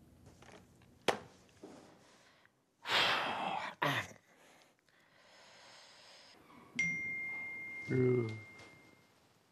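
A sharp click, a loud burst of hissing noise, then a single bright ding that rings for about two seconds while a man gives a short vocal sound over it.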